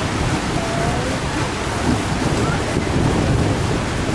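Thunderstorm: rain and gusting wind through the trees, with a steady low rumble of wind on the microphone.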